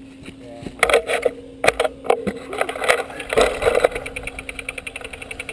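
Knocks, scrapes and rustles of a helmet-mounted action camera being jostled as its wearer moves on the ground, with a run of sharp knocks between about one and four seconds in.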